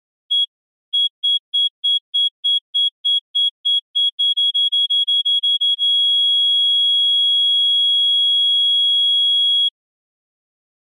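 Electronic bomb-timer sound effect: short, high, single-pitched beeps that come faster and faster until they merge into one long steady tone about six seconds in, which cuts off suddenly about four seconds later, the timer's countdown running out.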